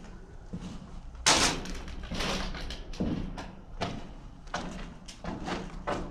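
Footsteps walking through an underground air raid shelter passage, about one step a second, with one louder thump about a second in.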